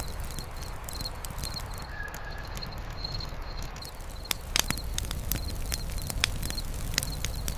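Campfire crackling, with sharp irregular pops over a low steady rumble. A short high chirp, from an insect, repeats about twice a second throughout.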